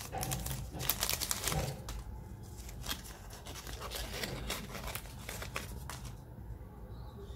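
Foil wrapper of a KitKat bar crinkling and tearing as it is peeled off by hand, densest in the first two seconds, then lighter crinkles that die away about six seconds in.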